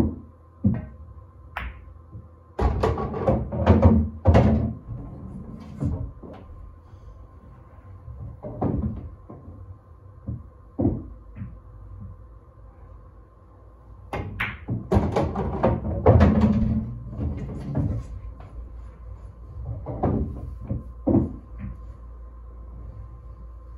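Pool shots on a Diamond table: the cue tip striking the cue ball, balls clicking against each other and dropping with thuds into the pockets. There are two busy clusters of knocks, about three and fifteen seconds in, with single clicks scattered between them.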